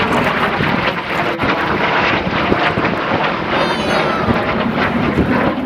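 MiG-17 jet fighter flying past overhead, its turbojet engine making a loud, steady rush of noise.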